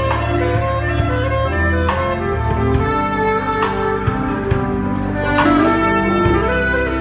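Live band playing an instrumental passage: saxophone and electric guitar over a bass line and a steady drum beat.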